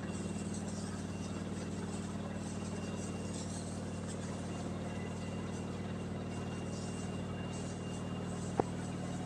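A steady low machine hum made of several fixed low pitches, with faint rustling now and then and one sharp click near the end.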